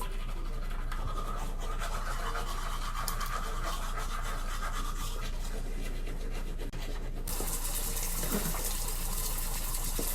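Teeth being brushed, a toothbrush scrubbing steadily at the sink. From about seven seconds in, a tap runs into the sink.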